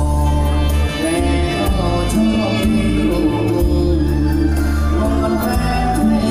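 Live band music with a male singer singing into a microphone, over a steady drum beat and heavy bass.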